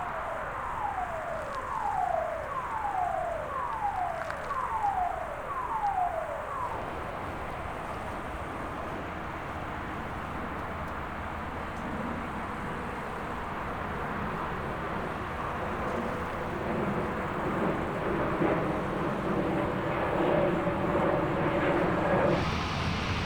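Jet airliner engines growing louder as the plane approaches, a rushing roar with a steady whine that builds through the second half. Earlier, a series of about eight quick falling calls, each under a second apart.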